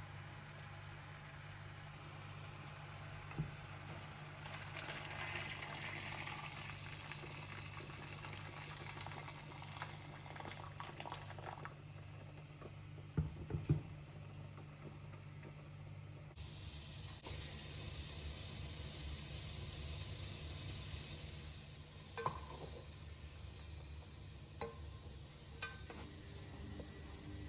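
Cooking in a pan or pot: a steady sizzling hiss with stirring and a few sharp knocks of a utensil, broken by an abrupt cut about halfway through.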